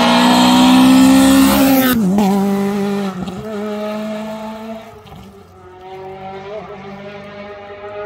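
Rally car engine at high revs passing close by. Its pitch drops sharply about two seconds in as it goes past, then climbs again as the car accelerates away, with a short break for a gear change about five seconds in, growing fainter.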